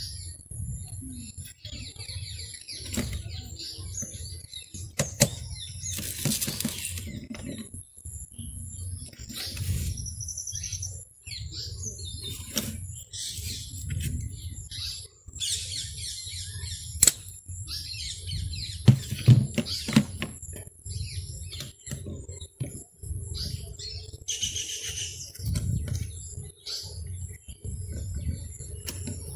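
Small metal clicks and scrapes from steel retaining clips and washers being fitted by hand onto the shoe pivot pins of a scooter's centrifugal clutch plate, with handling noise in between. The clicks are irregular and scattered, a few sharper than the rest.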